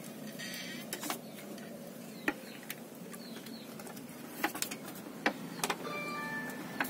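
Steady low background hum with scattered sharp clicks and taps, and a brief high chirping about six seconds in.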